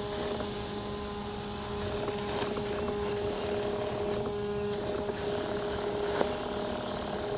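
Battery-powered backpack sprayer's electric pump humming steadily.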